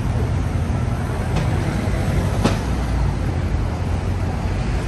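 Steady rumble of city road traffic, with a brief sharp tick about two and a half seconds in.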